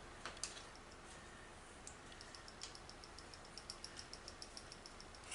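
Faint metallic clicking of hand-tool work on a nut and its star-shaped lock washer: a few separate clicks near the start, then a run of small, evenly spaced ticks, about five a second, in the second half.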